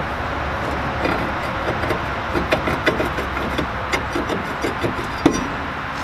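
Pickup truck's front brake rotor being worked off the wheel hub by hand: a series of light metal clinks and scrapes as it slides over the wheel studs, with one sharper knock a little past five seconds in, over steady background noise.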